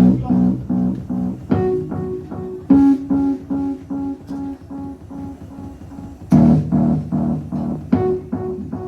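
Bass playing a steady run of repeated plucked notes, about three or four a second. Drum and cymbal hits accent it every second or two, with the strongest crashes at the start and about six seconds in.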